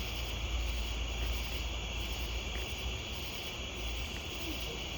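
Steady, unbroken chorus of crickets, with a low rumble underneath.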